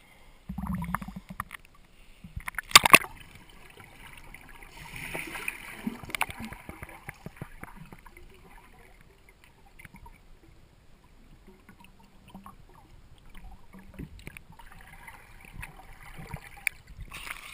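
Water heard through a camera dunked under a lake's surface: a sharp splash about three seconds in, then a muffled, even wash of water with faint bubbling, and more splashing near the end as it comes back up.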